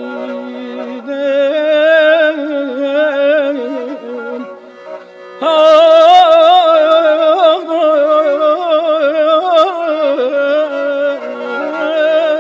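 Persian classical ensemble music in an instrumental passage: a sustained, wavering bowed-string melody, likely the kamancheh, over held lower notes. It thins out around the middle and comes back louder with a new phrase.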